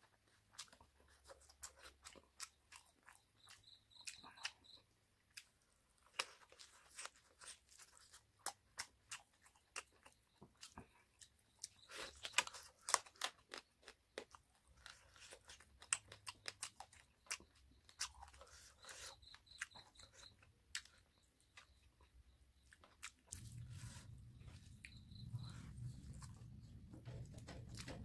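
Close-up eating sounds of a man eating rice and chicken curry by hand: wet chewing and lip-smacking clicks with occasional crunches. A steady low hum comes in near the end.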